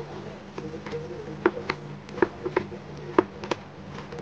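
A wooden spoon knocking and clicking against a cooking pot and plate as koftas are slid one by one into the gravy: about ten sharp, irregular taps over a steady low hum.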